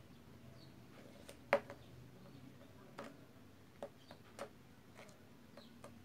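Plastic spoon clicking and tapping against a small plastic cup while stirring a thick glue and shaving cream slime mix: a scattering of short sharp clicks at uneven intervals, the loudest about a second and a half in.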